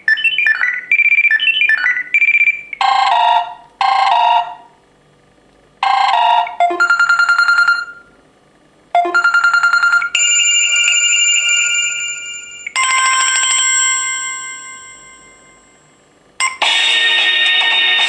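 Samsung Galaxy tablet stock ringtones played one after another: short electronic melodies and chimes, each cut off after a second or a few before the next begins. A longer ringing tone fades away about two-thirds of the way in, and a louder, fuller ringtone starts near the end.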